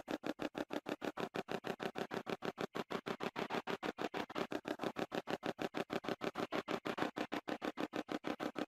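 Spirit box app running: a fast, choppy stream of short sound fragments chopped at an even rate of about eight a second.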